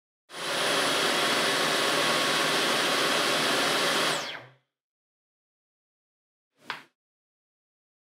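Dyson V15 Detect cordless stick vacuum's motor starts and runs with a steady whine for about four seconds. It is then switched off, and its pitch falls as the motor spins down. About two seconds later there is a single short click from the button under the LCD screen being pressed.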